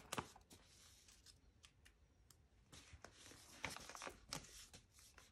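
Faint rustling and small ticks of a paper sticker being peeled off its glossy backing sheet, clustered about three to five seconds in.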